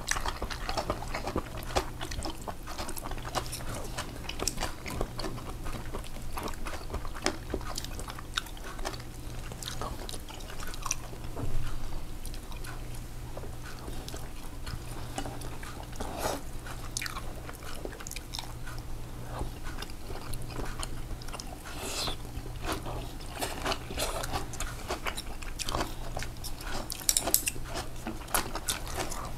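Close-miked eating sounds: chewing and biting food, with many short smacks and clicks scattered throughout and a few louder ones about eleven seconds in and near the end, over a steady low hum.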